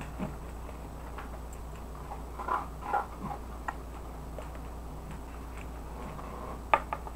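Close-up eating sounds of rice stick noodles with egg: noodles slurped up and chewed, with scattered small wet clicks and a sharp click near the end.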